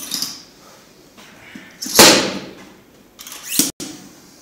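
Rubber bumper plate being loaded onto a steel barbell sleeve: a loud clank about two seconds in, then a scraping slide ending in a knock near the end.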